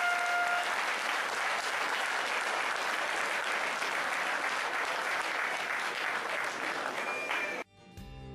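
Crowd applauding steadily, a dense clapping that cuts off abruptly near the end. A brief pitched tone sounds right at the start.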